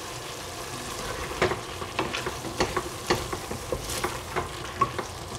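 Shredded potato and celery strips sizzling in a stainless steel saucepan while a wooden spatula stirs them. From about a second and a half in, the spatula makes repeated sharp knocks and scrapes against the pan.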